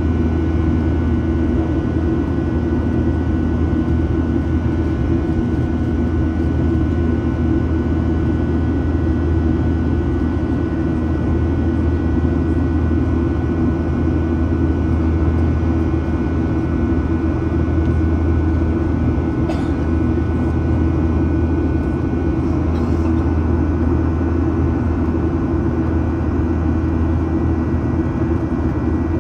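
Boeing 737-800's CFM56-7B jet engines and airflow heard inside the passenger cabin: a loud, steady low drone with a faint steady whine over it.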